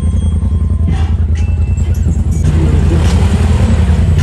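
Background music with a steady low bass line, mixed with the low, steady running of a side-by-side UTV's engine.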